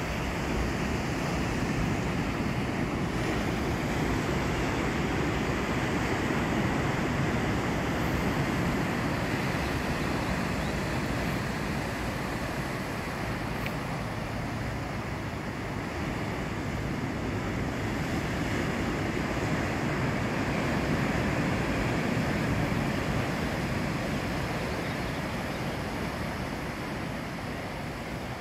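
Ocean surf breaking and washing over a rocky shore: a steady rushing that swells and eases over several seconds, with wind on the microphone.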